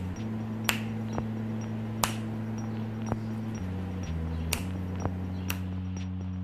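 Background electronic music: sustained deep synthesizer chords that change every second or two, with sharp snap-like clicks now and then and a faint steady tick over the top.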